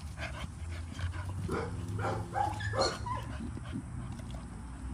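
Dogs giving a run of short yips and whines, several in quick succession from about a second and a half in, over a steady low hum.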